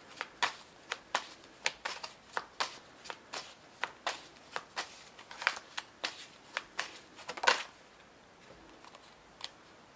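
Tarot cards being shuffled by hand: a steady run of short, crisp slaps, about two to three a second, that stops about three-quarters of the way through, with one last snap near the end.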